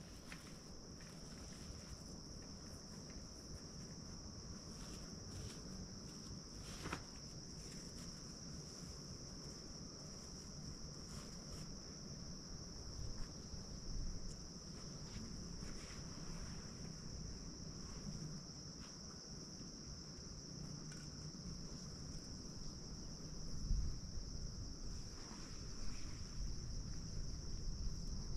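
Insects chirring steadily in one high, unbroken note, with scattered rustles and crunches of footsteps on a dry pine-needle floor, a few of them louder near the middle and toward the end.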